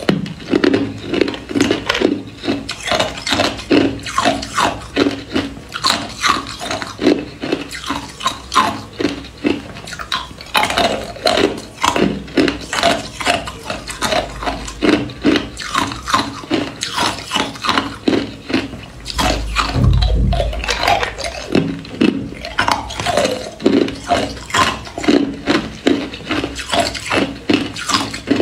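Hard ice cubes bitten and crunched close to the microphone: a steady run of sharp crunches, about two a second, with a brief dull low thump about twenty seconds in.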